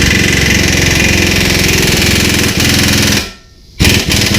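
Impact wrench hammering as it runs down the strut's mounting bolts: one long run of about three seconds, then a second short burst near the end.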